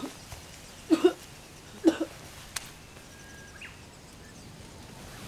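A woman's short voiced gasps, one about every second, three in the first two seconds and then stopping.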